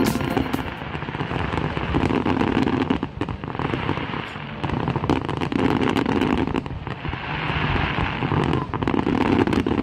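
Fireworks display: a dense crackle of many small pops from bursting shells and glittering crackling stars. It swells and eases in waves every few seconds.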